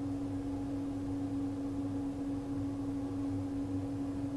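Steady background hum with one constant low tone held throughout, over a faint even hiss; no clicks or other events.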